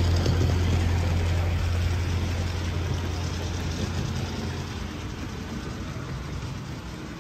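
OO gauge model train running on its track: a steady low hum with a hiss over it, fading steadily away.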